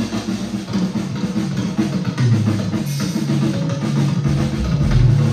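Live band dance music: a drum kit keeping a steady beat under a moving bass line.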